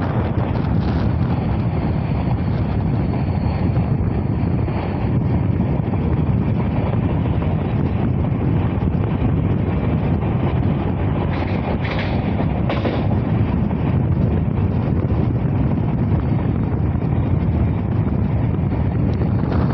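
Steady running noise of a moving passenger train heard from on board, with wind buffeting the microphone.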